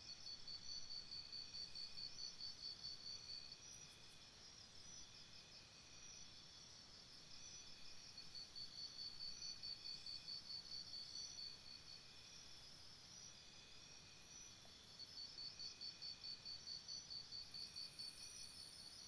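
Faint insect chirping, cricket-like: three long trains of rapid, evenly repeated high-pitched chirps, each lasting three to four seconds, separated by pauses of several seconds.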